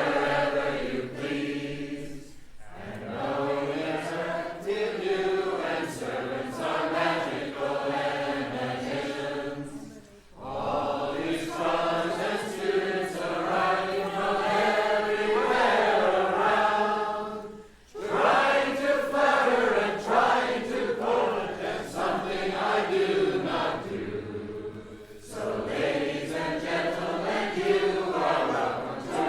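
Voices chanting a Tibetan Buddhist song in long sung phrases, with a short pause for breath about every seven to eight seconds.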